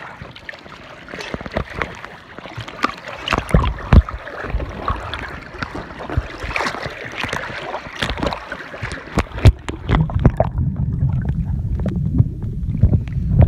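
Sea water splashing and gurgling around a camera at the surface, with many sharp knocks of water against it. About ten seconds in, the sound turns to a dull low rumble as the camera goes under water.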